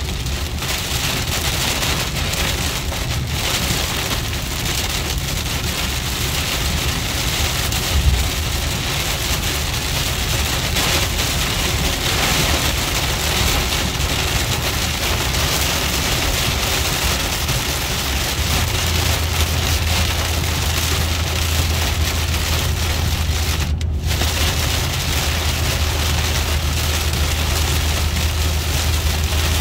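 Heavy rain pelting a car's windshield and roof, heard from inside the moving car over a steady low road and engine rumble. A brief low thump comes about eight seconds in.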